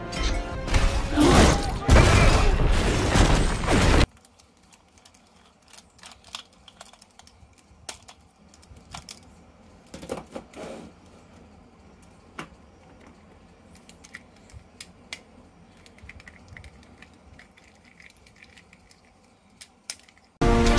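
Loud music that cuts off suddenly about four seconds in, followed by a long quiet stretch of scattered small clicks and taps from plastic toys and packaging being handled. Music comes back in just before the end.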